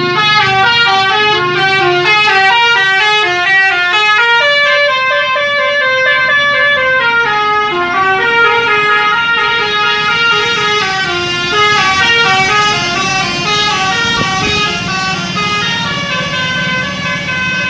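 Indonesian bus telolet horn playing a long, fast, winding ('mengular') melody of many short notes that step up and down in pitch.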